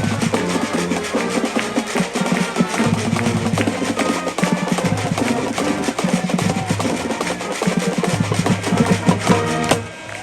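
High school marching band playing: brass holding low notes over a busy drumline with snare rolls and bass drum. The music cuts off with a final hit near the end.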